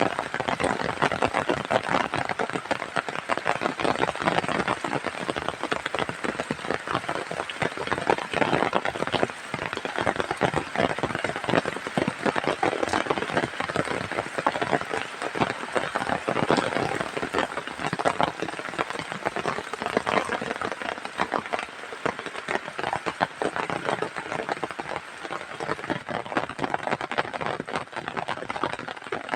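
Heavy rain pouring down: a dense, steady patter of countless drops.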